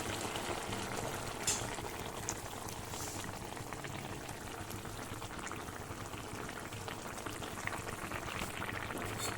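A pan of enoki mushroom soup with chili and tomato sauce bubbling steadily on the boil, with a few light clicks.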